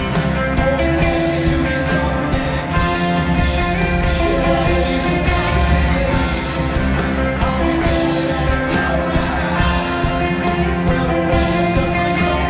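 Rock band playing live with drums, electric guitars and keyboards in a loud, steady full-band passage.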